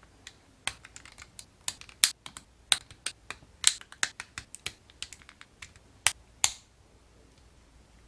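Hard plastic armor parts of a 1/60 Perfect Grade Gundam Exia model kit clicking as they are pressed and snapped onto the leg frame by hand: a quick, irregular run of sharp clicks, two more a little after six seconds in, then stopping.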